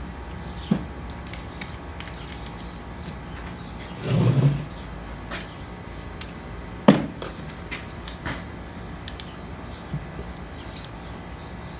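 Scattered clicks and knocks of tools and parts being handled during a hydraulic pump teardown, with a heavier clunk about four seconds in and the sharpest knock about seven seconds in.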